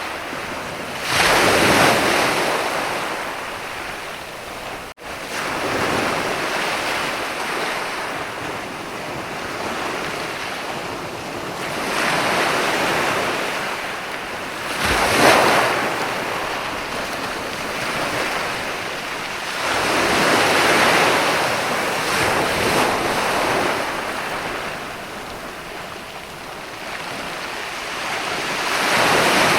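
Ocean surf: waves breaking and washing up the shore, swelling and fading every several seconds, with the loudest breakers about a second in, around fifteen seconds in and near the end. The sound cuts out for an instant about five seconds in.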